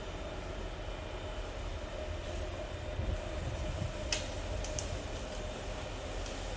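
Engine of heavy tree-service machinery running steadily with a low rumble and a steady hum, with a few short sharp clicks, the loudest about four seconds in.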